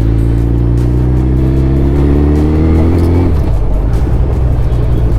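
Suzuki Hayabusa's inline-four engine pulling under acceleration, its pitch climbing steadily, then dropping abruptly about three seconds in and running on at a steady lower note.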